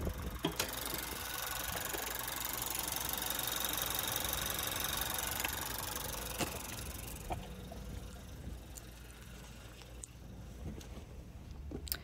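A couple of clicks as the car's hood is raised, then the 2016 Honda Fit's four-cylinder engine idling, heard up close over the open engine bay. About seven seconds in the idle drops back to a low steady hum.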